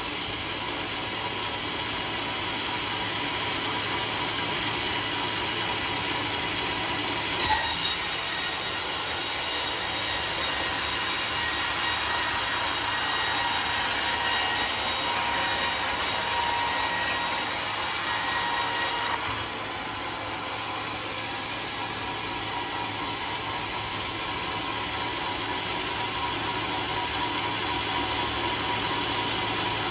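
Homemade band sawmill running, its new band blade cutting lengthwise through a teak log. The cutting noise starts sharply about seven seconds in, holds steady, then drops off abruptly about two-thirds of the way through, leaving the saw running without load.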